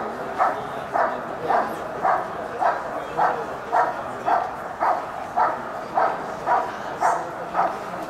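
German Shepherd barking at a protection-sport helper in an even, steady rhythm of about two barks a second.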